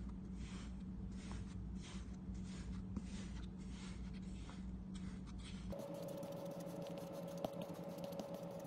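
Kinetic sand squashed under a plastic mould by hand: soft scrunching strokes about twice a second, then after about six seconds a finer, dense crackling over a faint steady hum.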